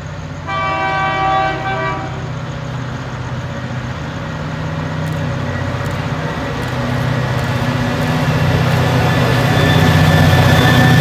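An approaching diesel freight locomotive sounds its multi-tone horn in one short blast about half a second in. Its engine drone then grows steadily louder as it draws near.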